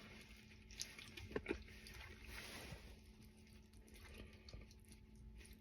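Faint eating sounds: a person chewing ribs, with a few soft mouth clicks and smacks about a second and a half in.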